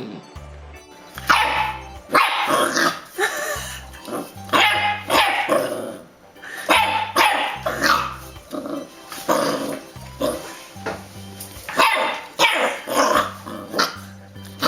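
Dachshund barking over and over in short groups of two to four barks, over background music.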